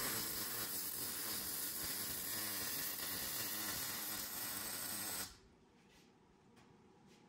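A shop tool's steady hiss that starts suddenly and cuts off after about five seconds, followed by a few faint clicks.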